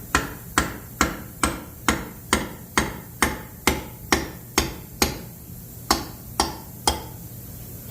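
Small hammer striking a screwdriver wedged into a Ford 429 big-block to pry the intake manifold loose: steady metal-on-metal blows about two a second, about fifteen in all, with one brief pause and stopping near the end.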